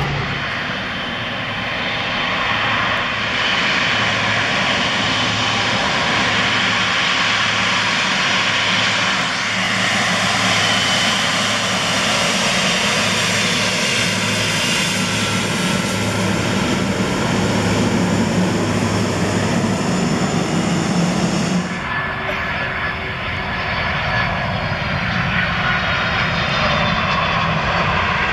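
Twin-engine jet airliners running on the ground: a Boeing 777's engines give a steady rushing roar with a high whine over it. About three-quarters through the sound changes abruptly to a Boeing 767's engines.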